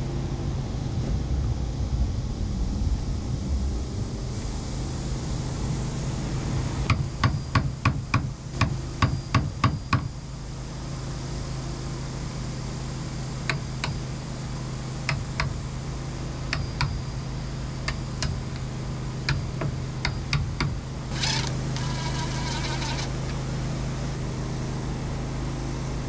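Hammer tapping a chisel into a wooden door jamb, a quick run of about a dozen taps some seven seconds in, then a few scattered single taps, cutting the recess for a door latch. A brief whir follows later on, all over a steady engine hum.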